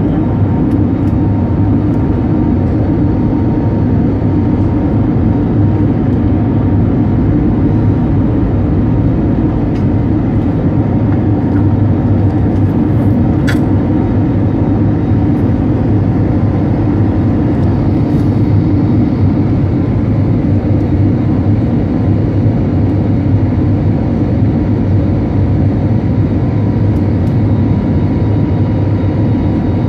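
Steady engine and airflow rumble of an Airbus A320-family jet airliner climbing after takeoff, heard inside the passenger cabin, with a faint steady hum and one brief tick about halfway through.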